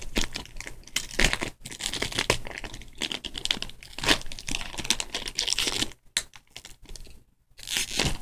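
Pokémon card booster pack's wrapper crinkling and tearing as it is pulled open by hand, in irregular crackles that thin out in the last couple of seconds.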